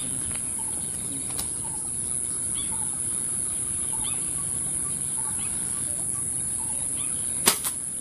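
A steady high-pitched insect drone of the forest edge, with a bird giving faint short calls about once or twice a second. About seven and a half seconds in comes one sharp, loud crack, followed by a smaller one.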